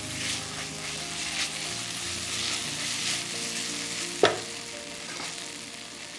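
Pork belly stir-fry sizzling in a pan while it is stirred and tossed, the utensil scraping the pan now and then. About four seconds in, the utensil gives one sharp clack against the pan.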